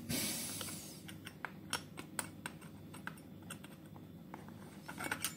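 Light, irregular metallic clicks and taps of a small combination spanner and the saw chain against a pole chainsaw's bar while the chain tension screw is adjusted, after a soft hiss that fades over the first second.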